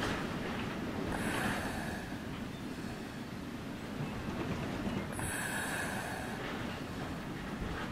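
Storm wind blowing in a steady rushing noise that swells twice, about a second in and again around five seconds in.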